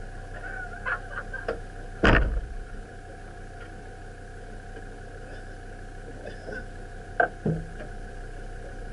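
A handful of sharp knocks, the loudest about two seconds in and two more near the end, over a steady high hum.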